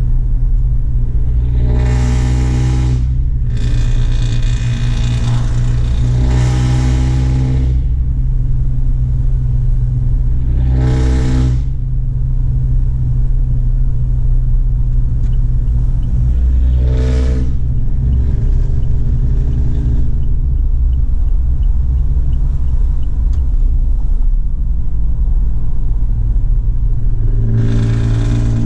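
Truck exhaust running with a loud, steady low drone. About six times it swells into a harsher roar lasting a second or two, as when the engine is pushed.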